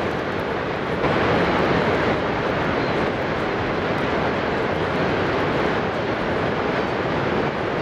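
The Horseshoe Falls at Niagara Falls: a steady, loud roar of water pouring over the brink and crashing into the gorge, growing slightly louder about a second in.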